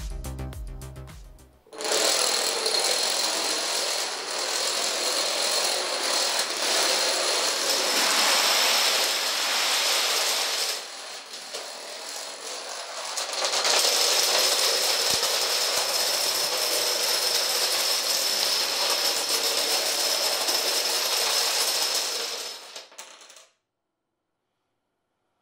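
Thousands of toy dominoes toppling in a continuous dense clatter, easing for a couple of seconds about halfway through and building again, then cutting off a couple of seconds before the end. Music fades out just before the clatter begins.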